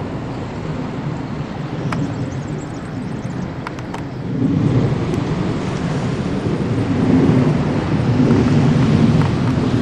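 Distant jet engine rumble from military jets flying overhead, F-15C Eagles and a KC-46A tanker in air-refuelling formation. It is a steady low roar that grows louder about four and a half seconds in.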